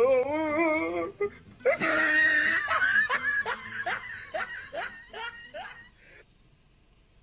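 A person laughing: a wavering, drawn-out laugh, then a run of short laughs that fade away about six seconds in.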